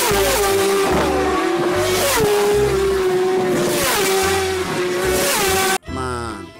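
Racing motorcycles passing one after another at full speed on a wet road, each engine's pitch dropping as it goes by, over a steady hiss of spray. The sound cuts off suddenly near the end.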